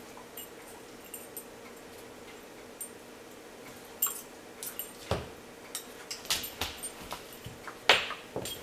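A dog and a cat play-wrestling on a hardwood floor: claws scrabbling, bodies bumping and small metallic clinks, with no barks or growls. It is fairly quiet for the first few seconds, then the clicks and knocks come thicker, and the loudest knock is near the end.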